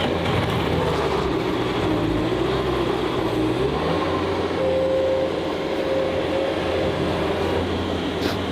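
Heavy snow-clearing machine's engine running under load: a steady mechanical noise with a whine that dips in pitch about two seconds in and climbs back a couple of seconds later.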